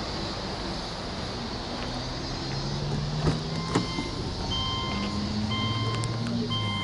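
Two sharp clicks as the car's door is opened, then the Subaru Legacy's door-open key-reminder chime beeping about once a second, over a steady background hum; the engine is not yet running.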